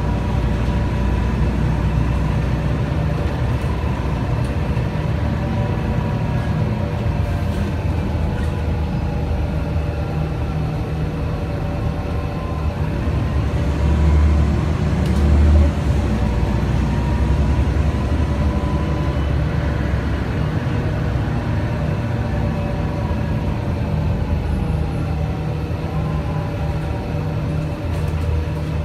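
Interior of a Mercedes-Benz O 405 NH city bus on the move, its Mercedes M 447 hG CNG engine and ZF Ecomat automatic gearbox giving a steady low drone. A thin whine over it drifts slowly up and down. Two deep thumps come about halfway through.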